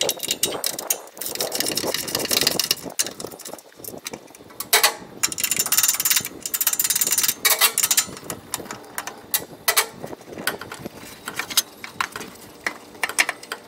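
Hand tools working the bolts on a mower deck: quick runs of clicking, with scattered metal clinks and knocks, as the discharge chute deflector is unbolted.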